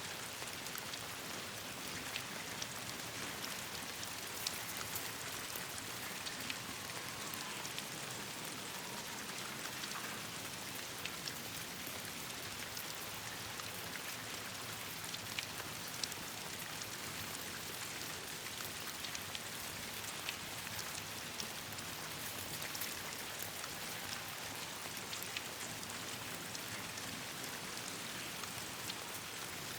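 Steady rain falling on leaves, an even hiss dotted with many scattered sharp ticks.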